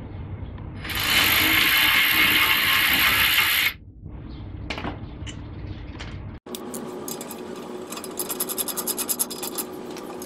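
Hand work at a car's front brake caliper. About a second in, a loud steady rushing noise lasts about three seconds and stops abruptly. Later comes a rapid run of metallic clicks.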